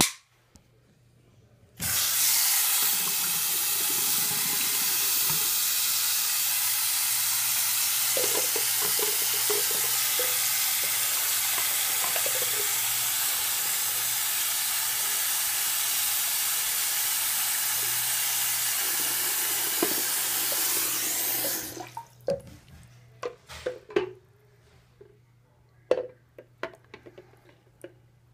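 Bathroom sink faucet running, its stream splashing over a sealed GoPro waterproof housing held under it. The water comes on about two seconds in and is shut off about twenty seconds later, followed by a few small clicks and knocks as the wet housing is handled.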